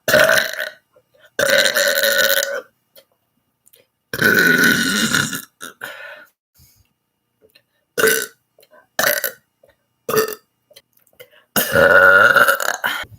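A person belching about seven times, loud and separate with pauses between. Four burps are long, a second or more each, and three near the end are short.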